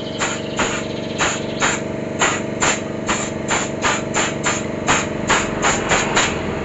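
About seventeen quick scrubbing strokes, two to three a second, as the clutch bell from a Honda Vario 110's CVT is cleaned of clutch-lining dust. A steady hum runs underneath.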